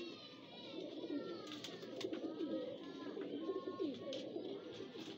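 Domestic pigeons cooing, a low continuous murmur, with thin higher chirps over it.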